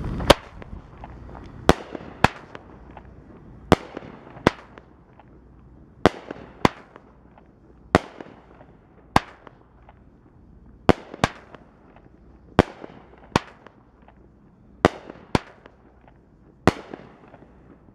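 TNT Fireworks Chopper, an 8-shot 200 g consumer cake, firing: about sixteen sharp bangs, roughly one a second, as its comets launch and burst into peonies.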